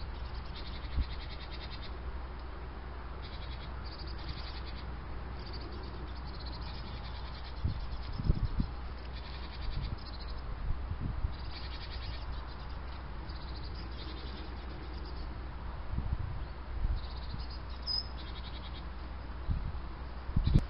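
Open-air field ambience: a steady low hum with gusts thumping on the microphone now and then, and faint high chirping that comes and goes.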